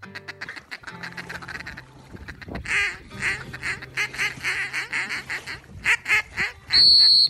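A duck quacking in a quick run of about three quacks a second, followed near the end by one loud, steady, high-pitched whistle blast.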